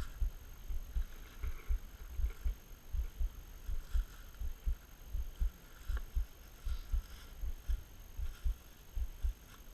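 Dull low thuds, irregular at about two a second, like footsteps knocking through a microphone worn by someone walking.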